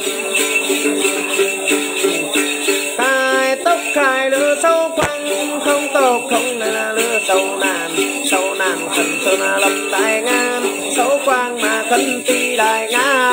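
A man singing a Then chant in a bending, ornamented melody while plucking the đàn tính, the long-necked gourd lute of the Tày and Nùng, with small bells jingling along.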